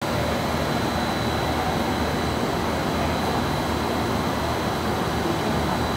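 Steady machine noise of a running three-layer blown film co-extrusion line: a constant rushing hum with a thin, steady high whine over it.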